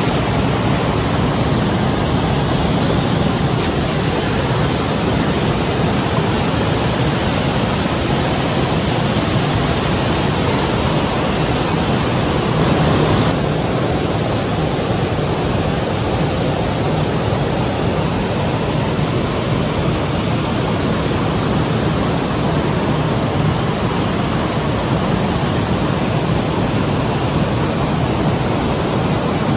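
Steady rushing of flowing water, loud and even throughout, easing slightly in its higher range about 13 seconds in.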